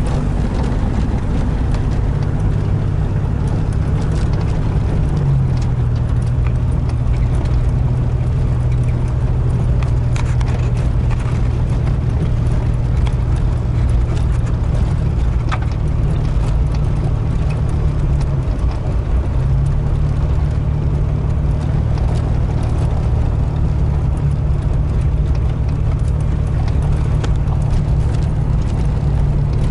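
Vehicle engine and tyre noise heard from inside the cab while driving: a steady low engine hum whose pitch shifts slightly about five seconds in and again near nineteen seconds.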